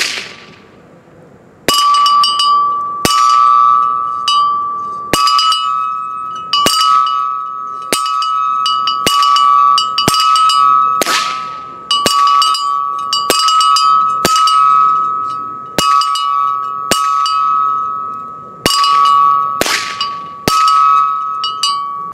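A hanging steel bell target being hit again and again by .22 LR rounds from a Ruger 10/22, about once a second. Each hit is a sharp clang that rings on at one steady pitch and dies away slowly, each ring cut short by the next hit.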